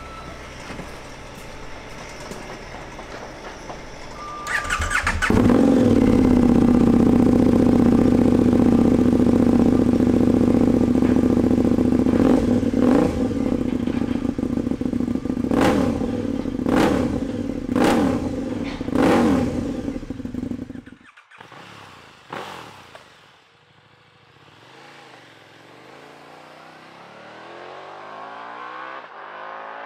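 KTM 1290 Super Duke R's V-twin, fitted with an Austin Racing GP1R titanium end can, starting about five seconds in and idling loudly. About six short throttle blips follow, and the engine is shut off about twenty seconds in. A fainter engine sound rises toward the end.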